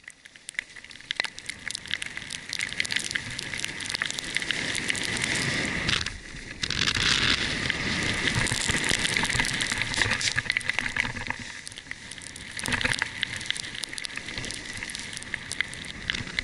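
Skis sliding fast over snow, a steady crackling hiss. It builds over the first few seconds, drops away briefly about six seconds in, then comes back louder before easing off.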